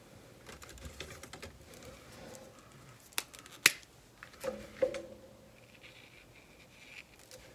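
Quiet paper handling with light clicks, two sharp clicks a little over three seconds in, then a marker scratching on a paper sheet near the end.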